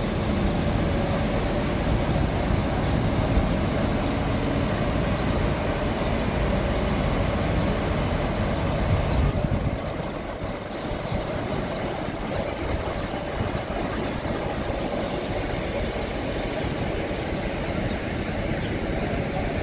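Bus engine running with a steady rumble and a faint hum, a little quieter from about halfway through.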